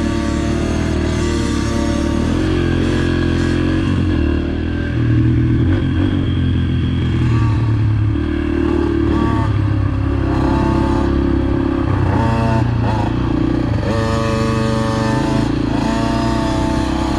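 Dirt bike engines running and revving, rising and falling in pitch again and again through the second half.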